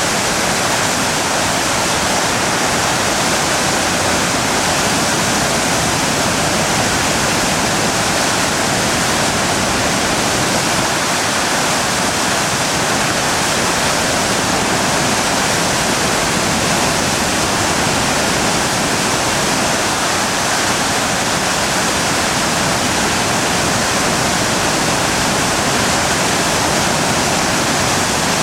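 A river in heavy flood: a great volume of fast water rushing, loud and steady without a break.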